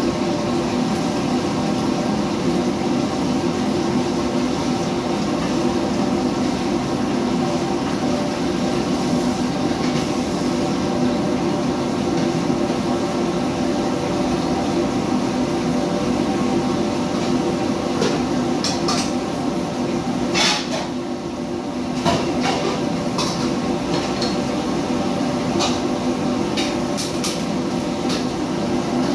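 Steady drone of a commercial kitchen's extractor hood and wok stove running. From about two-thirds of the way through come short metal clinks and clatters of pans and utensils.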